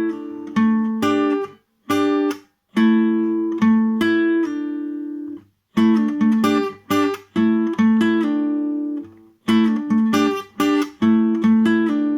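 Guitar playing a picked riff of single notes and two-note pairs, with short gaps between phrases.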